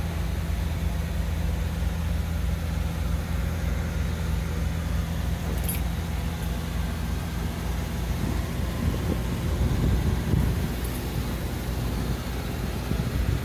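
1968 Chevrolet Impala's engine idling steadily on a cold start, heard from inside the cabin, with a brief swell in the low rumble about nine to eleven seconds in.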